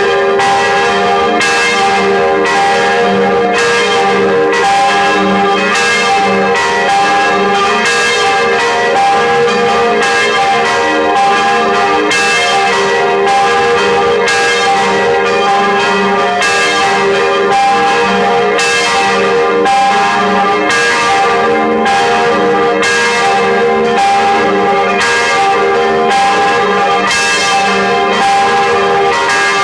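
Church bells ringing together in a continuous full peal, their strokes coming thick and overlapping so that the tones hum on without a break.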